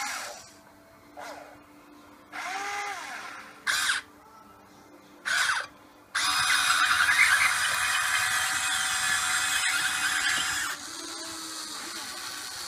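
Huina 580 RC excavator's electric motors and gears whining in short bursts as the boom and bucket move, the pitch rising and falling with each movement, then a louder, longer run of about four seconds as the machine swings away.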